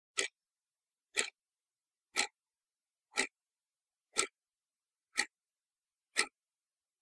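Clock ticking, one tick a second, seven ticks with dead silence between them.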